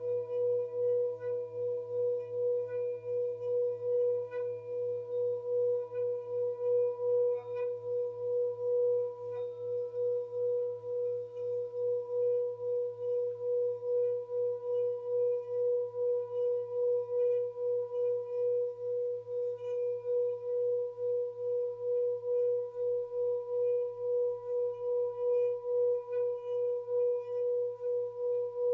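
Tibetan singing bowl sounding one sustained steady tone that pulses in an even wavering beat about twice a second.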